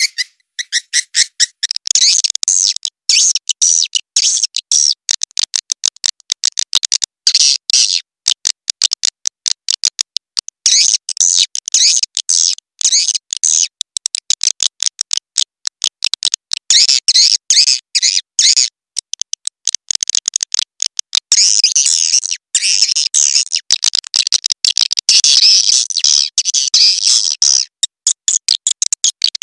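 Recorded swiftlet calls played as a lure track: dense, rapid, high-pitched twittering chirps in quick runs broken by many brief gaps.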